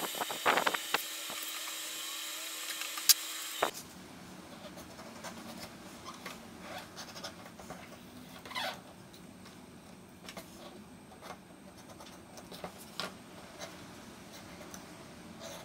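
Scattered small scrapes, rubs and taps of hand work on leather. The background hiss changes abruptly about four seconds in, as at an edit.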